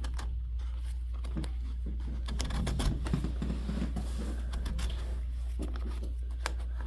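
Scattered small clicks, ticks and rustles of hands handling a vintage rope-tensioned bass drum, busiest in the middle, over a steady low hum.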